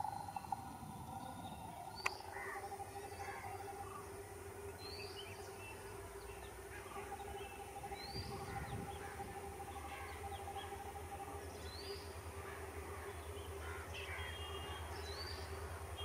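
Birds chirping, one of them repeating a short rising call about every one and a half seconds, over a faint low steady hum. A single sharp click comes about two seconds in.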